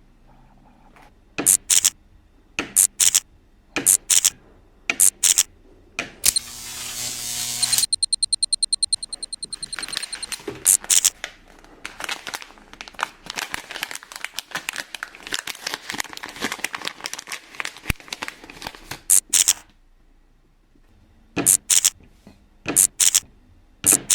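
Toy packaging being opened by hand: plastic and cardboard crinkling and tearing, with sharp loud snaps scattered through it and a quick even run of clicks about eight seconds in.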